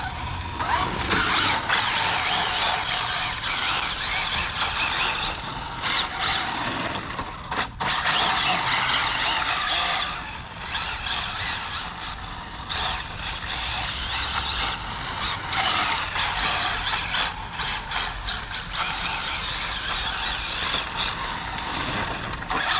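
Arrma Infraction V2 1/7-scale RC car on 8S power, its brushless motor whining and tyres squealing through handbrake slides, in repeated surges with short breaks.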